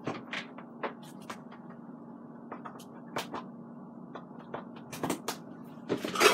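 Scattered clicks and light knocks of a rice cooker being handled and its plug pushed into a wall outlet, with a denser cluster of clicks near the end as hands work the cooker's lid. A low steady hum runs underneath.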